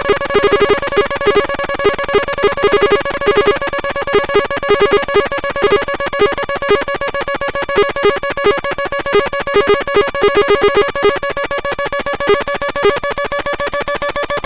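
Torturon C30 electronic noise synthesizer: a steady high electronic drone chopped into a very fast pulse, with irregular stuttering beeps of a lower pitch breaking in and out.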